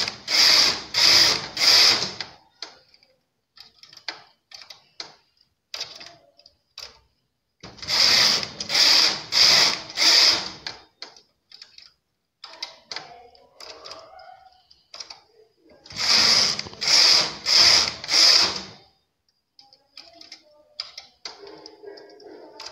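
Domestic flatbed knitting machine: the carriage rattles across the needle bed in three quick runs of about four passes each, knitting four rows at a time. Between the runs come lighter clicks of the needles being worked by hand for a one-needle decrease on each side.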